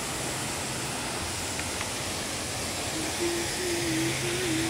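Steady, even rushing of a waterfall. About three seconds in, a singing voice comes in over it with a wavering melody.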